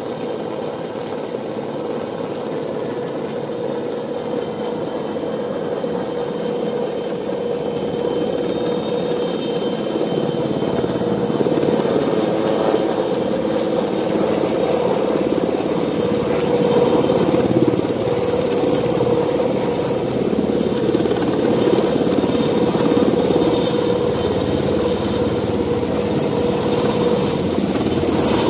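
Large helicopter approaching: a steady turbine whine over rotor noise, growing steadily louder as it comes in low toward the camera.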